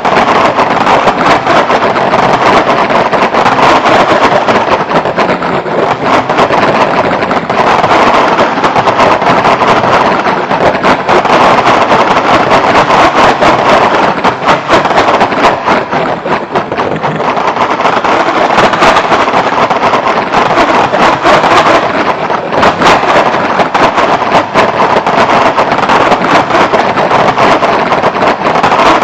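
Dense electronic computer-music texture: a loud, noise-like mass centred in the middle range and shot through with rapid clicks, swelling and ebbing every few seconds.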